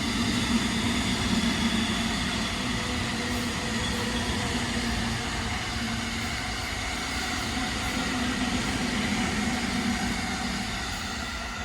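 Electric commuter train running past on the line, a steady rolling noise with several faint steady tones that eases off near the end.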